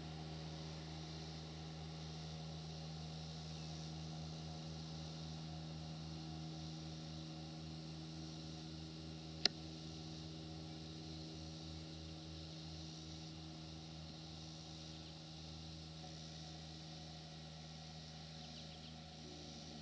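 Faint, steady drone of a Cessna 177RG Cardinal's single piston engine and propeller, slowly fading as the plane climbs away into the distance. A single sharp click about halfway through.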